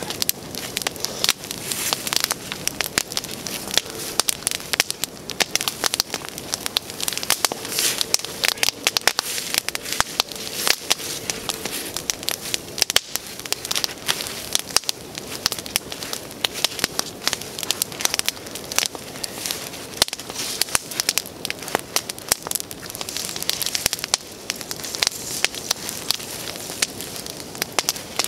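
Wood campfire crackling, a steady stream of sharp, irregular snaps over a soft hiss.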